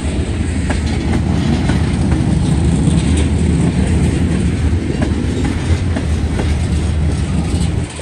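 Freight train's tank cars rolling past: a loud, heavy rumble of steel wheels on the rails, with scattered clicks and clacks, easing off just before the end.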